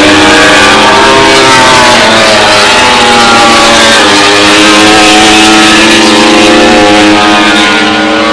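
Racing motorcycle engines running on the circuit, several at once and loud, their pitch rising and falling as they accelerate and ease off.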